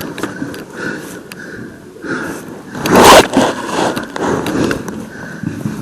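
Breathing and rustling movement close to the microphone, with a loud noisy burst about three seconds in.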